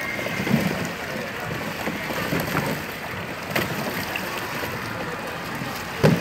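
Water splashing and churning as the plastic paddle wheels of a children's paddle boat turn in a shallow pool. A single sharp thump comes near the end.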